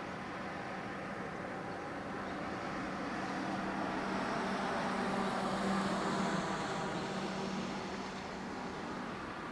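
Boeing 787-8 Dreamliner's Rolls-Royce Trent 1000 turbofans at takeoff power as the airliner passes. The sound swells to a peak about six seconds in and then eases, with a high whine that falls slightly in pitch.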